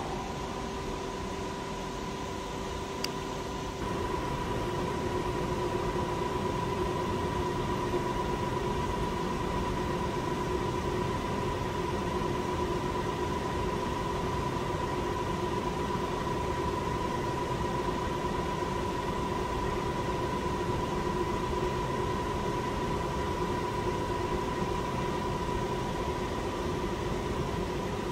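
Vertical knee mill's spindle running steadily with a constant hum and two steady tones while it spins an edge finder in its drill chuck; it gets a little louder about four seconds in.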